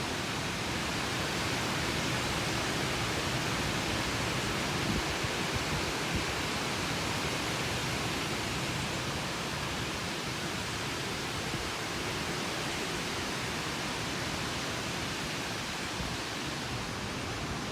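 Storm wind blowing hard in a steady rushing gust, rising slightly a few seconds in.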